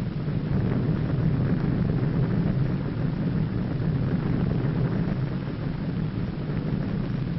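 Steady deep rumble of an underwater atomic bomb explosion, heaviest in the bass with a hiss above.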